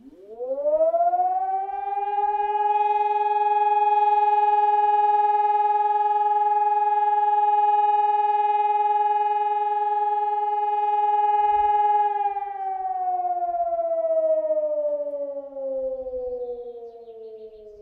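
Hörmann ECI 1200 electronic siren sounding a fire-brigade test alarm. The tone sweeps up within about two seconds, holds steady for about ten more seconds, then slowly falls away in pitch and level.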